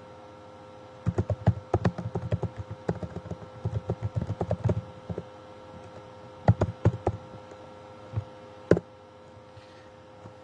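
Typing on a computer keyboard: a run of quick keystrokes from about a second in, another short burst past six seconds, then a single sharp keystroke near the end.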